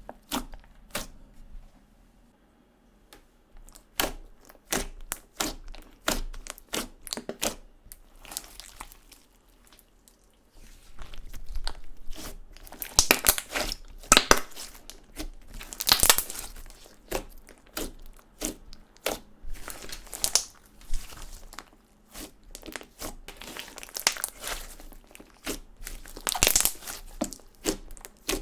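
Hands squeezing and stretching clear slime mixed with makeup and glitter, making rapid sticky clicks and pops. It goes quieter about two seconds in and again about ten seconds in, with denser, louder crackling around the middle and near the end.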